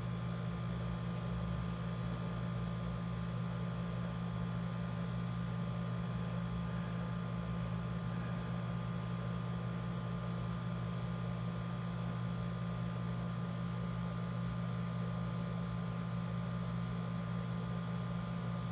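Steady low mechanical hum that does not change, with a faint steady higher tone above it.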